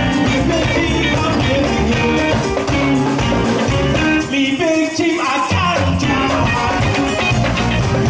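A New Orleans Mardi Gras Indian funk band playing live through a PA, with drums, bass, electric guitar, keyboard, trombone and singing. About four seconds in, the bass and drums drop out for about a second, then come back in.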